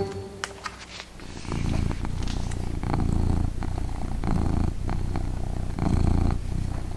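A book page being turned with a few light clicks, then from about a second and a half in a low, rattling purr that goes on in long stretches with short breaks between them.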